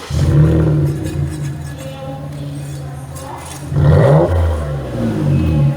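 Ford Edge's 3.5 L Duratec V6 running through a modified exhaust with the rear muffler removed and dual tips fitted, giving a deep exhaust note. It comes in suddenly, as at start-up, settles to a steady idle, then is revved once about four seconds in, pitch rising and falling, with a shorter blip near the end.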